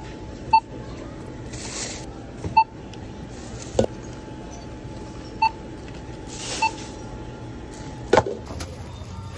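Self-checkout barcode scanner beeping four times as items are scanned: short single-pitched beeps at uneven gaps of one to three seconds. A couple of sharp knocks of items being handled come in between, one just before the middle and one near the end.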